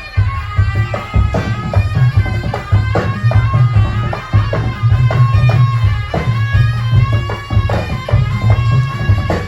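Live Javanese barongan ensemble music: a nasal reed-pipe melody held over dense hand-drum strokes and a heavy low beat.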